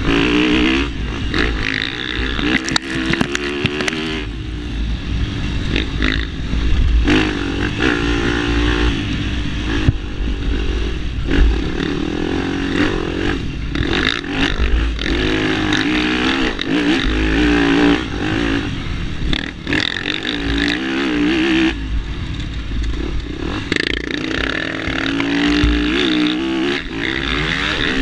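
Yamaha dirt bike engine being ridden hard, its revs climbing and dropping again and again through gear changes and throttle chops. Wind rumbles on the microphone and the bike clatters over bumps.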